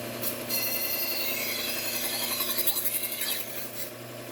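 Steel knife blade ground against the running abrasive belt of a Bucktool slow-speed belt sharpener: a grinding hiss with a high ringing whine over the machine's steady motor hum, starting just after the beginning and easing off about three and a half seconds in.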